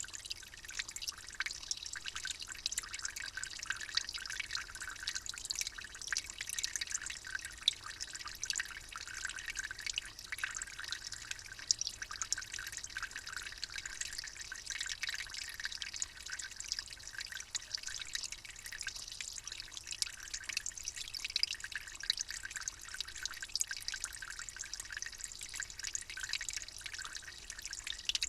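Water dripping and trickling: a steady, dense patter of small drops with a light hiss, high and thin with little low sound.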